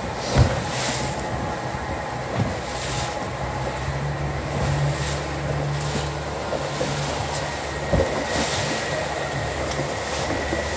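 A small open boat's motor running steadily under way, with wind buffeting the microphone and water rushing and slapping along the hull. Two sharp thumps, one about half a second in and one near the eighth second, stand out above the hum.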